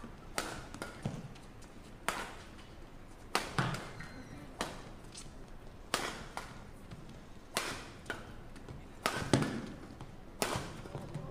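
Badminton rally: rackets striking the shuttlecock in a quick exchange, a sharp crack about every second or so, about ten hits in all.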